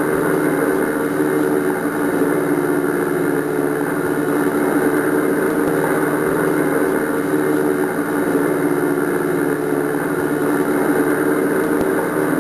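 A loud, steady mechanical drone like a running motor, unchanging throughout.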